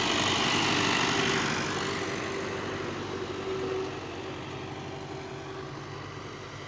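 New Holland 640 tractor's diesel engine running steadily at close range, growing quieter after about two seconds.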